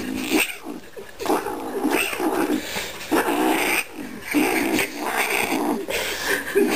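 Kitten growling and yowling in repeated bouts, about one a second: the warning noise of a kitten guarding something held in its mouth while someone tries to take it.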